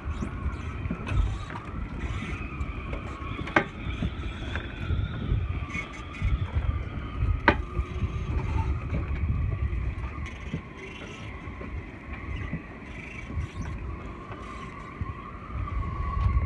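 Wind buffeting the phone's microphone in gusts, over a steady, slightly wavering whine. Two sharp clicks, about three and a half and seven and a half seconds in.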